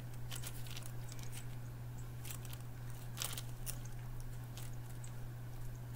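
Scattered faint clicks and small handling or mouth noises over a steady low hum.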